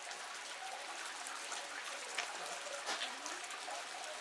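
Steady rain falling, with drops pattering and dripping on nearby surfaces; two louder drips land a little after two seconds and just before three seconds.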